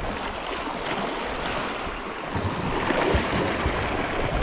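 Sea swell surging and washing over the rocks at the water's edge, a steady rush that swells about three seconds in.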